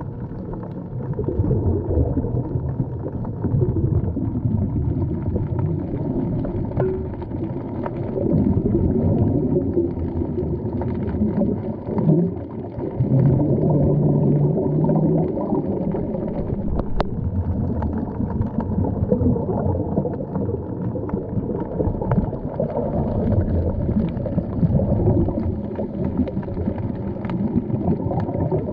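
Muffled underwater noise: a low rumbling and gurgling of water around the submerged camera, with a brief low hum about halfway through.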